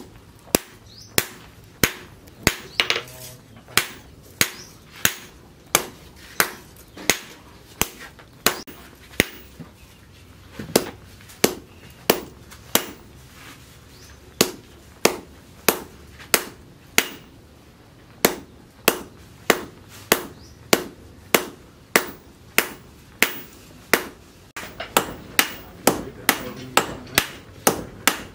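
Hand hammer striking red-hot plough steel on a steel post anvil while a sickle blade is forged, a steady rhythm of sharp blows about two a second. Near the end a second striker with a sledgehammer joins, and the blows come faster and alternate.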